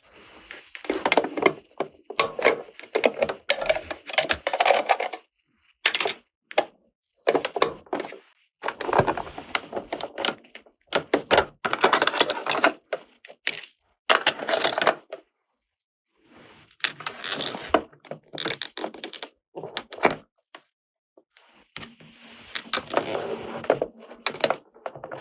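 Small plastic toy-kitchen parts being handled, clattered and clicked against each other, in short bursts of about one to three seconds with silent gaps between them.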